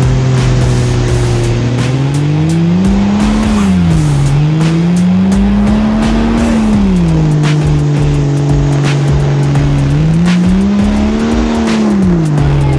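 1997 Jeep Cherokee XJ's engine under load as it spins circles in soft beach sand. It holds a steady note, then revs up and falls back three times.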